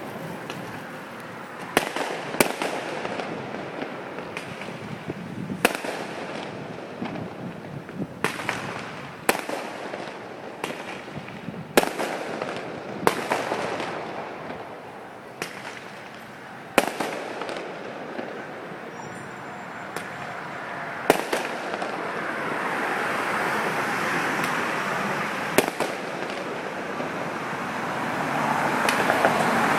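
Fireworks shells bursting: a dozen or more sharp bangs at uneven intervals, one to four seconds apart, over a steady rush of background noise that swells toward the end.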